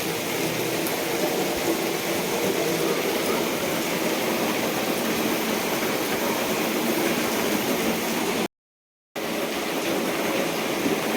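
Steady hiss of heavy rain falling, with the sound cutting out completely for about half a second around eight and a half seconds in.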